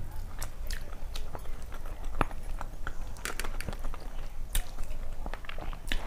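Close-miked chewing of a mouthful of rice and curry eaten by hand, with many small wet clicks and smacks of the mouth.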